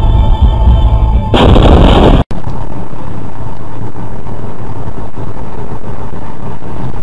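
Music, then a loud burst of noise about a second in lasting under a second, then after an abrupt cut the steady road and engine noise of a car heard through a dashboard camera.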